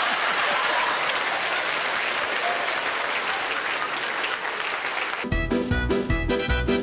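Studio audience applauding for several seconds, then cut off about five seconds in by music with a steady beat.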